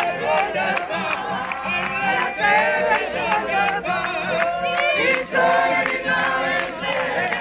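A group of people singing together outdoors in a street, with hand-clapping.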